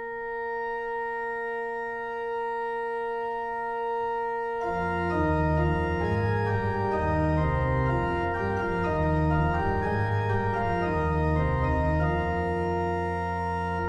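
Church organ playing a sustained chord. About four and a half seconds in, the bass and middle voices begin moving in a busy line of changing notes beneath the held upper notes.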